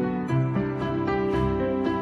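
Soft instrumental background music, a gentle melody of sustained notes changing every fraction of a second.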